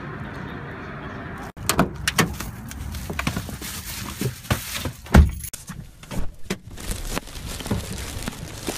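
Handling knocks and plastic shopping-bag rustle as someone gets into a car, with the car door shutting in one heavy thump about five seconds in.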